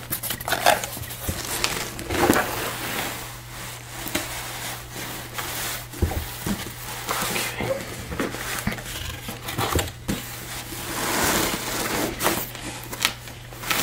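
Cardboard packaging being handled: flaps rustling and scraping, and a box sliding and knocking as an inner box is taken out of its outer carton and set down.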